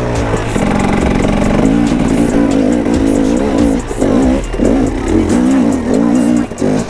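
Enduro motorcycle engine ridden off-road, its revs rising and falling in repeated surges as the throttle is worked, dropping off briefly just before the end.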